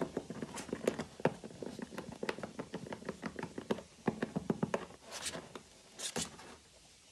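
Rabbit chewing: a quick, even run of crunching clicks, about four or five a second, that stops about five seconds in, followed by two brief rustles.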